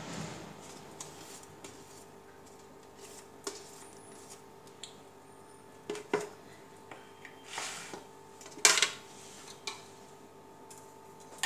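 Kitchen utensil handling: a silicone spatula scraping and tapping blended batter out of a mixer jar into a plastic bowl, and the jar being set down. The sound is scattered soft clicks and knocks, the sharpest about six and nine seconds in.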